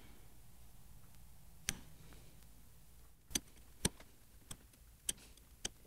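Half a dozen short, sharp clicks and taps at irregular intervals, starting a couple of seconds in: a marking knife and wooden boards knocking lightly against each other while dovetail tails are scribed onto the pin board. Faint steady room hum behind them.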